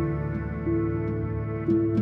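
Korean-traditional and jazz fusion band playing a slow piece: a saxophone holds long notes, changing note about once a second, over a steady low tone, with a few faint ticks of percussion.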